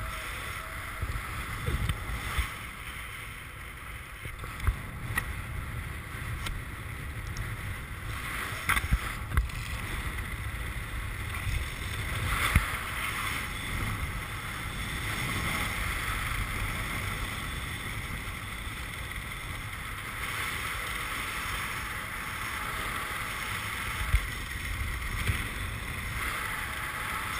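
Wind buffeting a GoPro action camera under an open parachute canopy: a steady rumbling rush with a few short knocks scattered through it.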